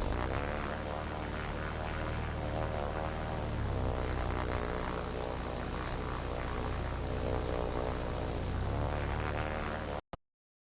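Music with sustained chords over a steady low bass, the harmony shifting twice, cutting off abruptly near the end.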